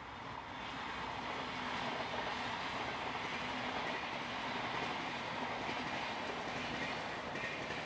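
A train running steadily along the rails, an even noise of wheels on track.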